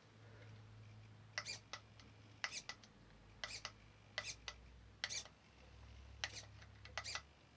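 Small radio-control servo whirring in short bursts, mostly in close pairs about once a second, as it swings a live-steam locomotive's forward/reverse valve-gear linkage back and forth, over a faint low hum.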